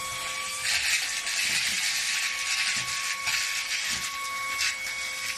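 Handheld vacuum cleaner's brushless motor running with a steady high whine. About a second in, a loud rushing hiss of suction starts as it cleans, with a few brief ticks.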